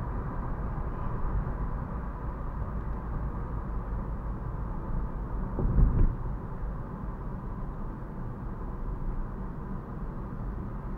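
Steady engine and road noise inside the cabin of a moving car, a low rumble with a faint steady hum above it. A brief thump about six seconds in is the loudest moment.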